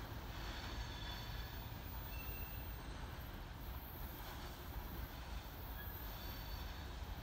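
Freight train of hopper wagons rolling away on a curve: a faint, steady rumble of wheels on rail, with a few brief, thin, high wheel squeals.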